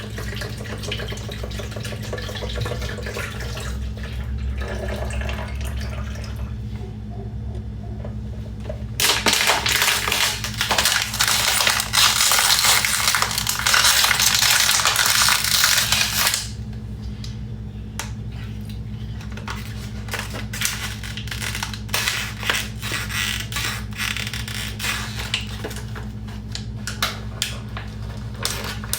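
Plastic water bottles being handled and crinkled in a kitchen, with sharp crackles and clicks. About a third of the way in, a loud steady rush lasts around seven seconds, over a low steady hum.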